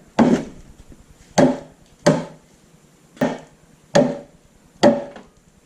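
Six sharp knocks, each with a brief ring, struck on a seized arbor press about once a second to free its moving parts after a soak in penetrating oil.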